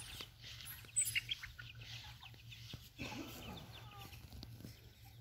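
A flock of young chickens clucking softly while foraging, with a few brief higher chirps.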